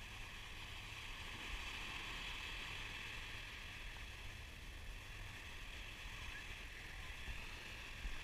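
Small waves washing steadily onto a sand beach, with wind rumbling on the microphone.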